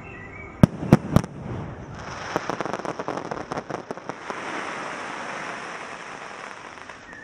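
Fireworks going off: three loud, sharp bangs in quick succession about half a second in, then a run of rapid crackling pops, settling into a steady hiss that fades toward the end.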